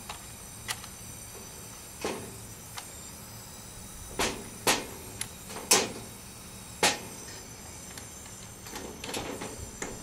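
Sharp clicks and knocks of brass hose fittings on a refrigerant manifold gauge set being handled and coupled to a handheld digital gauge: about eight separate clicks, then a looser run of small rattling clicks near the end, over a steady faint background noise.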